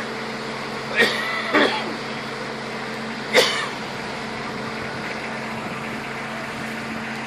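A steady engine or machine hum holds a few fixed tones throughout. Over it come three short distant voice calls or coughs: two close together about a second in and one about three and a half seconds in.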